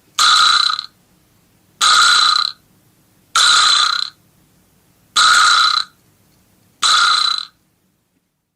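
Vibraslap struck five times, about one and a half seconds apart, each hit giving a loud buzzing rattle that lasts under a second.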